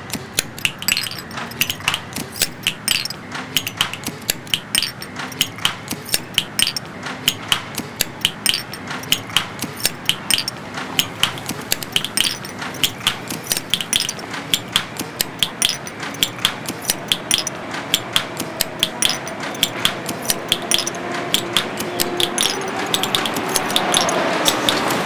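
Rhythmic sharp knocks, about three a second, over a soft low thud about every second and a half. In the second half a few held tones come in and the sound slowly grows louder.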